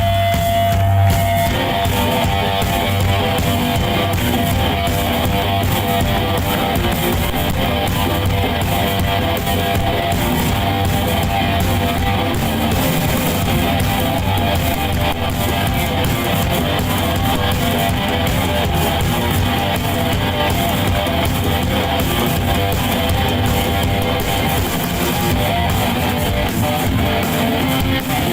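Live rock music: an amplified electric guitar strummed loudly and steadily, with no singing.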